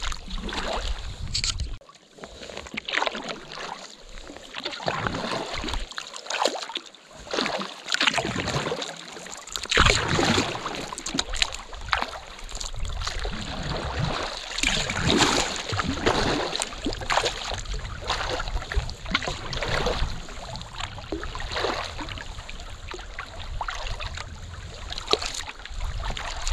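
Kayak paddle strokes dipping and splashing in the water, roughly one every second or two, with wind rumbling on the microphone in the first couple of seconds.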